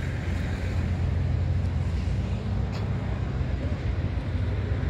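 Diesel engine running steadily at idle, a low, even hum.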